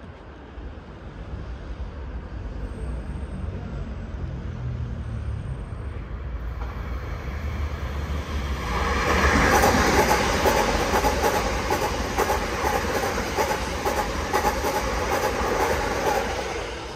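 Double-deck Regio 2N electric multiple unit passing through the station. Its rumble builds from about six seconds in and is loudest in the second half, with a steady whine and rapid clacking of wheels over the rail joints, then falls away at the end.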